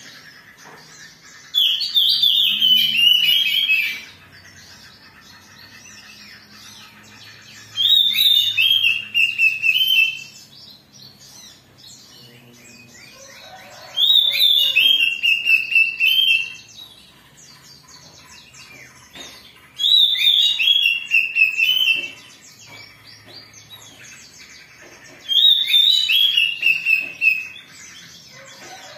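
Oriental magpie-robin (kacer) singing its agitated, fired-up song in five loud bursts of about two seconds each, one roughly every six seconds, each burst a run of quick whistled phrases sliding down in pitch. This is the kind of song used as a 'pancingan' to provoke other kacers into singing. Faint chattering continues between the bursts.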